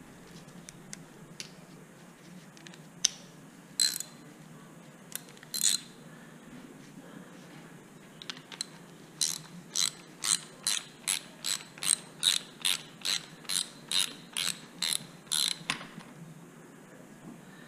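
Hand socket ratchet clicking as it is worked on a bolt of a CRF110 fork leg. A few separate clicks come first, then about halfway through a steady run of about three clicks a second that stops shortly before the end.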